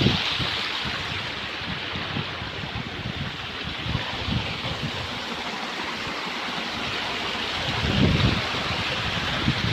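Steady rush of water falling and flowing over rocks at a waterfall, with wind buffeting the microphone in irregular low gusts that grow stronger about eight seconds in.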